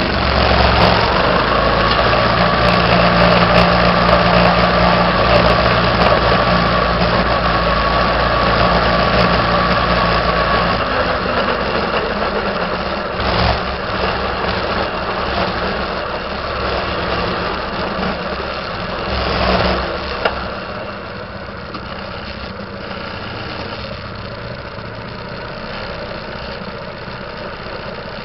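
A small engine running at a steady speed, loud for the first ten seconds or so, then quieter, with two brief swells before it settles lower.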